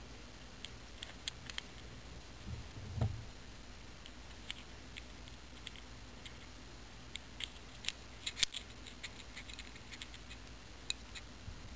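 Faint scattered clicks and light scraping of small metal engine parts being handled, as the wrist pin is lined up through the piston and connecting rod of an O.S. FS-52 model four-stroke glow engine, with a soft low bump about three seconds in and a cluster of clicks near the end.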